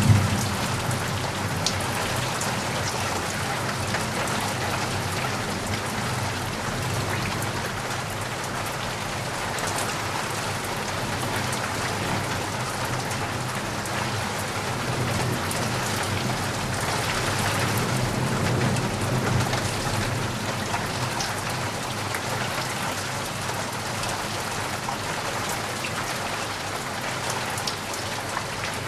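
Steady rain falling on a surface, a dense even hiss with scattered individual drop ticks and a low rumble underneath. It swells a little louder just past the middle.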